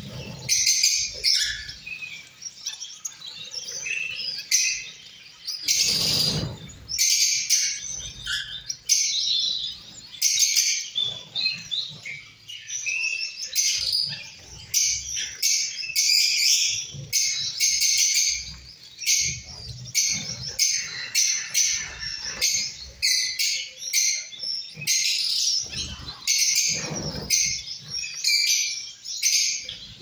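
A flock of small cage finches, Gouldian finches among them, chirping constantly in quick high calls. Now and then comes a flurry of wingbeats and splashing in a shallow bath dish, loudest about six seconds in and again a few seconds before the end.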